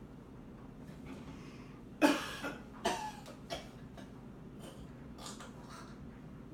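A person coughing: one hard cough about two seconds in, then several smaller coughs.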